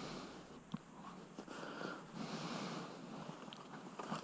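A person breathing close to the microphone: slow, soft breaths in and out every second or two, with a few faint clicks.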